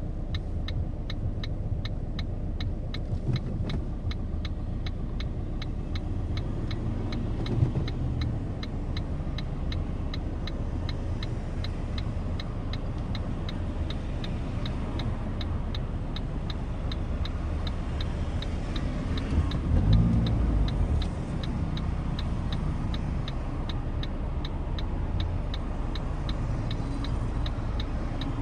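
Cabin sound of a Ford Focus diesel engine idling with a low rumble, while the turn-signal indicator ticks at an even rate. The engine note swells briefly about a third of the way in and again about two-thirds of the way in.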